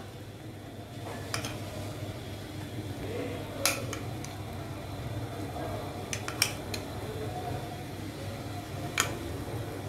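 A metal spoon clinking against a metal pot and bowl about five times, in short sharp clicks, while saffron water is spooned over cooked rice, over a steady low hum.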